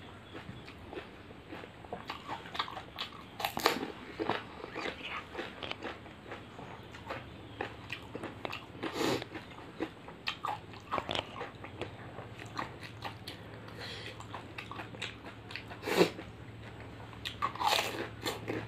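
Crisp, hollow golgappa (pani puri) shells being bitten and chewed close to the microphone: a run of small crackling crunches, with a few louder crunches as whole shells are bitten.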